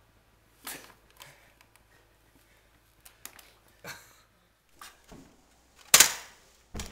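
A string of about seven sharp cracks and knocks, irregularly spaced, the loudest a bang about six seconds in.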